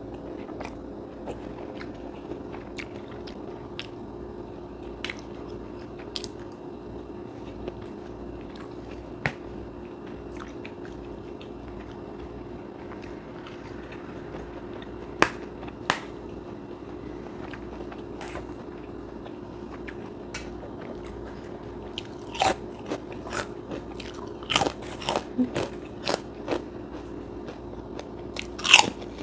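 A person chewing and biting food close to the microphone: soft chewing of fried noodles with scattered crisp bites, then a run of loud, crunchy bites of kerupuk crackers over the last several seconds. A steady low hum runs underneath.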